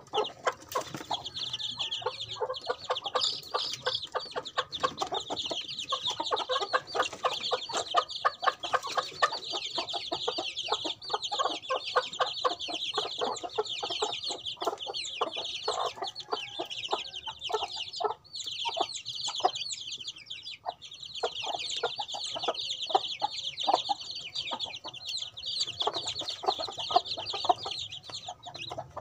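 A brood of young chicks peeping nonstop in high, quick chirps, over a dense patter of small ticks.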